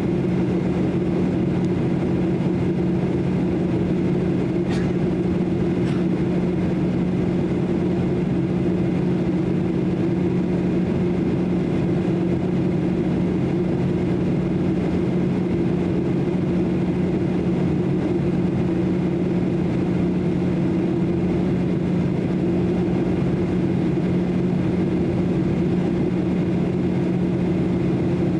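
Steady cabin noise of a Boeing 737-800 in flight: the even drone of its CFM56 turbofan engines and rushing air, with a steady low hum.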